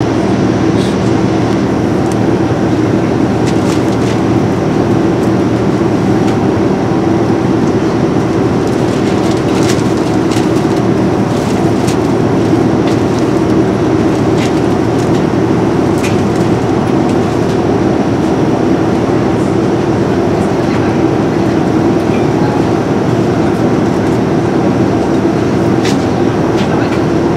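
Steady cabin noise of a Boeing 787-9 airliner in flight: an even, unbroken low drone, with a few faint clicks here and there.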